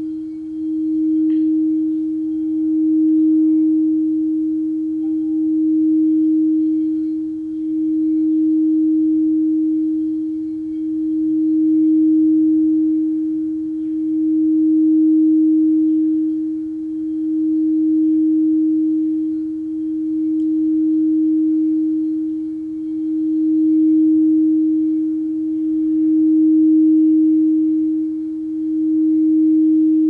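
Large frosted crystal singing bowl sung by circling a wand around its rim: one sustained steady tone that swells and eases about every three seconds as the wand goes round.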